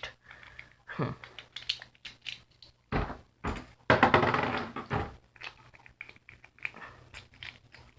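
3D-printed Beyblade Burst tops spinning and clashing: an irregular run of hard plastic clicks and knocks, with the loudest hits about one, three, four and five seconds in.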